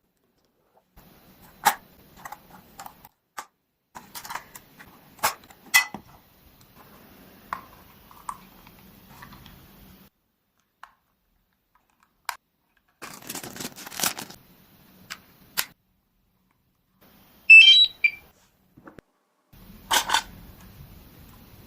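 Clicks, taps and rustles of a drone's packaging and parts being handled, with quiet gaps between. About seventeen and a half seconds in comes a short run of high electronic beeps, the loudest sound.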